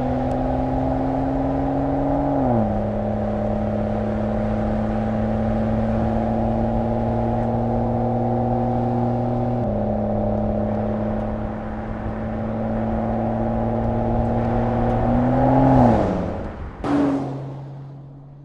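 Mercedes-AMG GLE 53's 3.0-litre turbocharged inline-six engine running at steady revs. Its pitch drops about two and a half seconds in and steps down again near the middle. Near the end the revs rise and fall, then come a short blip and a fade.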